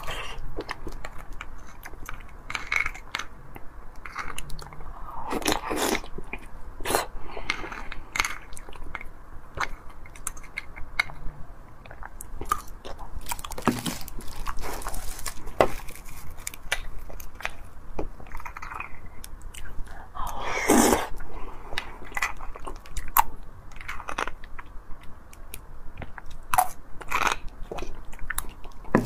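Close-miked eating of roasted beef bone marrow: chewing and mouth sounds, with a metal spoon clicking and scraping against the split bones as the marrow is scooped out, in many short sharp clicks and a few longer noisy stretches.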